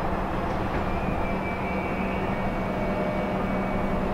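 Steady low rumble and hum of harbour machinery and ship engines, with a faint high whine coming in about a second in.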